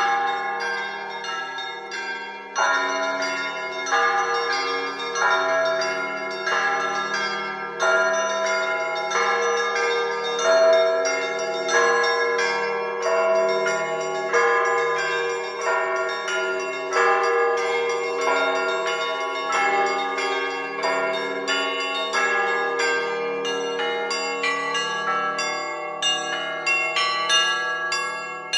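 Russian Orthodox monastery bells rung in a zvon: small bells chiming in quick patterns over a heavier stroke about every second and a half. The strikes come quicker near the end.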